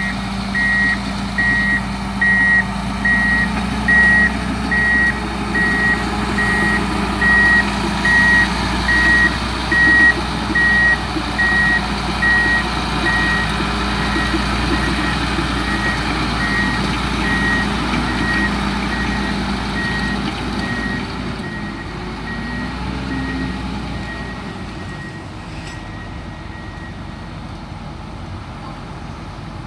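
Bagasse pusher's reversing alarm beeping about five times every four seconds over its running engine. The beeps grow fainter after about twelve seconds, and the engine sound drops away about three-quarters of the way through.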